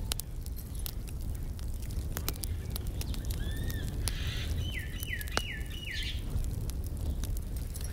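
Wood fire crackling in a brick stove under a griddle, with scattered sharp pops over a low steady rumble. In the middle a bird calls: two arched notes, then about four quick falling chirps.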